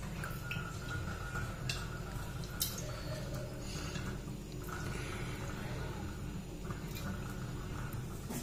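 Cooking oil poured from a steel bowl into a steel pot, with a few light clinks and taps of steel cookware, over a steady low hum.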